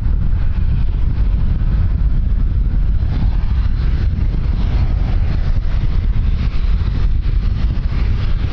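Strong wind buffeting the microphone, a loud, steady low rumble with a fainter hiss above it that grows a little about three seconds in.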